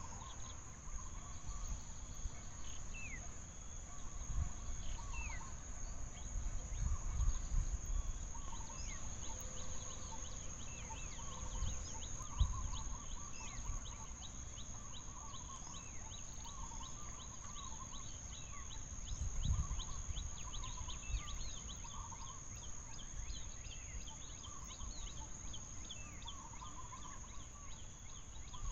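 Outdoor forest ambience: a steady high-pitched insect drone, with birds repeatedly calling in short falling chirps and warbling notes, over irregular low rumbles.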